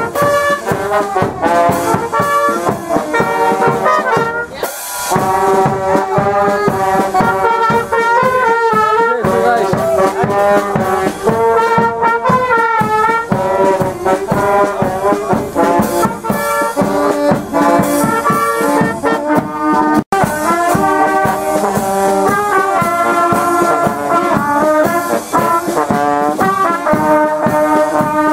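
Brass band playing a lively tune, trombones and trumpets carrying the melody in held notes. The sound cuts out for an instant about twenty seconds in.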